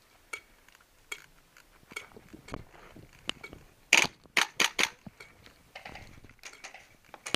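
Airsoft gunfire: scattered sharp cracks of airsoft shots and BB hits, then a quick run of about five louder cracks about four seconds in.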